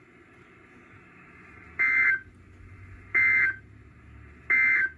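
Three short bursts of warbling EAS/SAME digital data tones from a NOAA Weather Radio broadcast, about 1.3 seconds apart. This is the end-of-message signal that closes an alert. A faint radio hum sits underneath.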